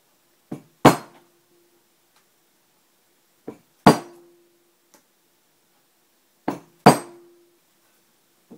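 Mallet striking a steel center punch to mark hole centers on an aluminum angle ground bar with copper strap: three hits about three seconds apart, each a light tap then a hard blow that leaves a short metallic ring.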